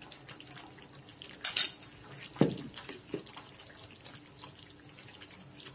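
A spatula stirring thick palm jaggery halwa in a non-stick pan, with wet squelching and plopping as the mixture cooks and thickens. A sharper scrape comes about a second and a half in.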